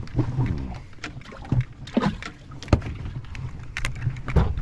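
Knocks and clatter of handling gear in a small fishing boat, a few sharp knocks scattered through, over a low steady hum.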